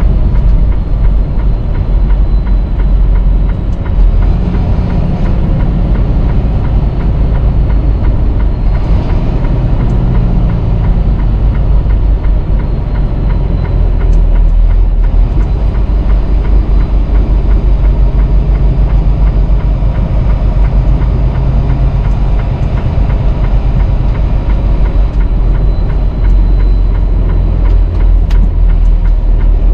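Semi truck driving at highway speed: a steady, loud low drone of the diesel engine and road noise.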